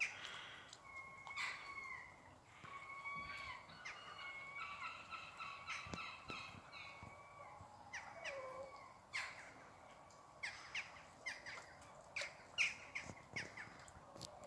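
Birds calling: a run of drawn-out calls through the first half, then a series of short, sharp sounds in the second half.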